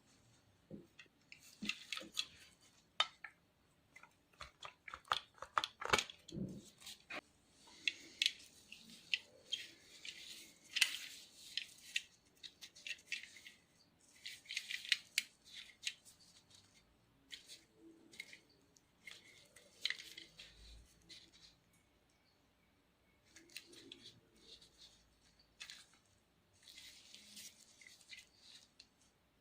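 Handling of an antique camera: a quick run of small sharp clicks, then short bouts of scratchy rubbing every few seconds, with a brief lull about two-thirds of the way in.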